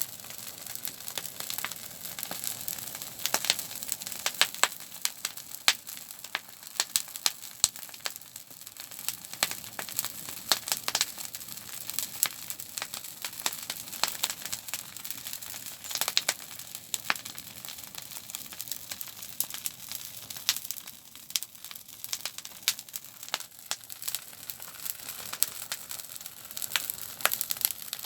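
Campfire burning, crackling with frequent irregular sharp pops and snaps over a soft hiss.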